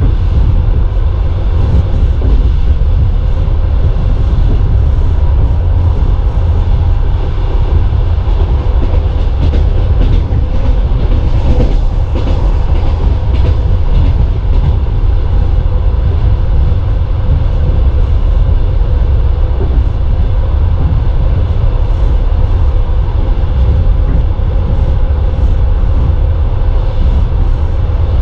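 Passenger train running at speed, heard from inside the carriage: a steady, heavy rumble of the wheels on the track, with a faint steady hum above it.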